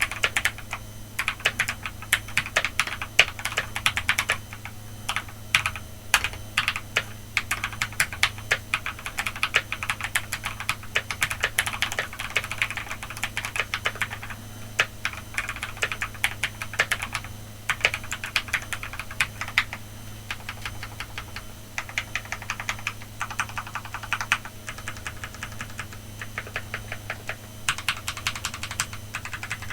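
Typing on a BM65 mechanical keyboard with Ajazz Diced Fruit Peach linear switches, Cherry-profile PBT double-shot keycaps and a plastic case dampened with a silicone pour and felt layer: fast runs of keystrokes broken by short pauses. A faint steady low hum sits underneath.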